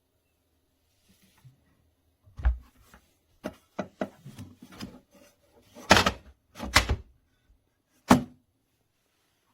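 A hard-sided plastic cooler being handled: a string of hollow knocks and thunks with small clicks, the heaviest pair about six and seven seconds in and a sharp knock near the end.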